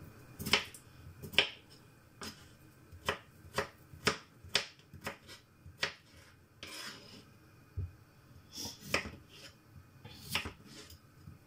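Kitchen knife cutting peeled potatoes into chunks on a cutting board: an irregular run of sharp taps as the blade strikes the board, about two a second.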